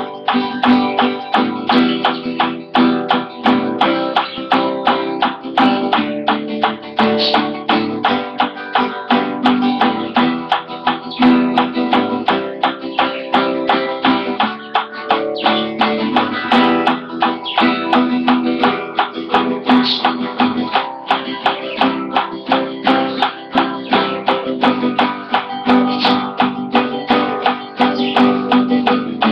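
Guitar strummed with a pick in a steady, even rhythm, the pick clicking against the strings on each stroke over ringing chords.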